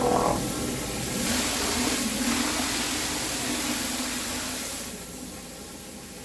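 Pressure washer spraying concrete: a steady hiss of the water jet over the washer's engine, easing off about five seconds in.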